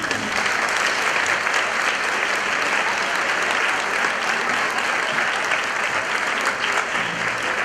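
A large seated audience applauding steadily, beginning all at once and holding an even level.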